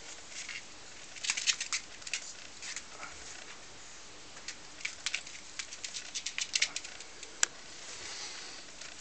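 Tibetan mastiff puppy's claws clicking and tapping on a hard wooden floor as it steps and turns about, in irregular clusters of sharp ticks, with one louder single click near the end.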